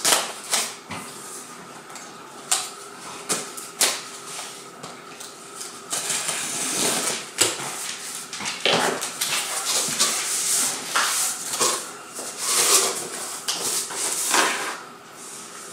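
Cardboard box being opened: packing tape slit with a cutter, then the flaps pulled apart and rustled. Scattered knocks and scrapes of cardboard, with longer stretches of rustling as the flaps are worked open.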